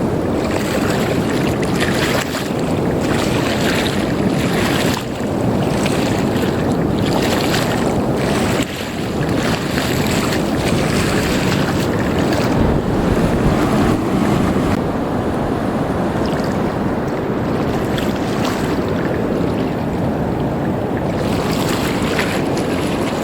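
Wind buffeting the microphone over the rush of surf and fast-moving shallow water, a dense steady roar with two brief lulls.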